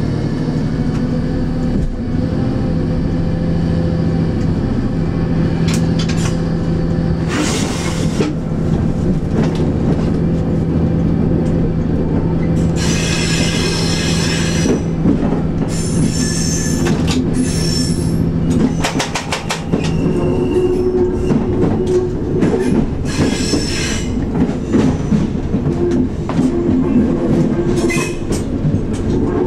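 Diesel railcar heard from the driver's cab, its engine running steadily as it rolls through station points and curves. The wheels squeal on the curves several times and click sharply over the switches, and the engine note changes about two-thirds of the way in.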